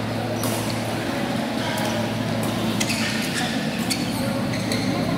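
Badminton rackets striking the shuttlecock in a doubles rally: a string of sharp clicks, one or two a second, over a steady low hum.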